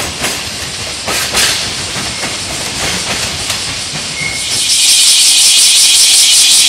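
Container wagons of a freight train clacking over rail joints, the clicks spaced unevenly and thinning out as the train moves away. About four and a half seconds in, the sound switches abruptly to a loud, steady high-pitched hiss with a fast flutter.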